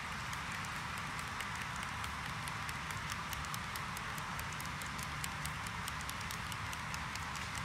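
HO scale model freight cars rolling past over track, their small metal wheels clicking rapidly and irregularly over rail joints above a steady rolling hiss and rumble.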